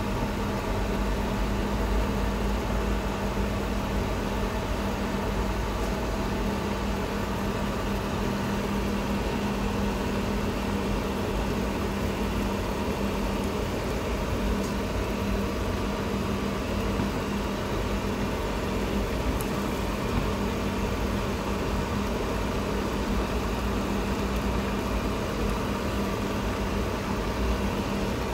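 Convenience-store instant-ramen cooking machine, an induction cooker, running with a steady hum while noodles cook in a paper bowl on its plate.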